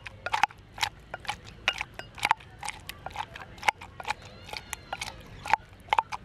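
Wooden spoon handle pounding and mashing peach chunks in a glass tumbler: irregular knocks of wood against the glass, about three or four a second, many with a short glassy ring.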